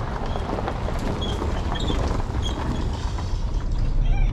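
Tyres of an SUV towing a small trailer crunching and crackling over a gravel road as it drives by, over a low steady rumble.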